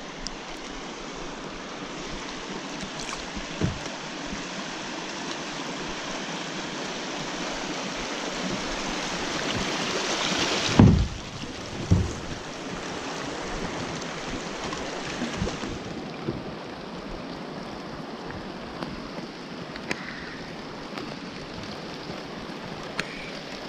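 Rushing water of class one river rapids washing past a kayak's hull, swelling to a peak about ten seconds in and then easing. A few dull knocks, the loudest just after the peak.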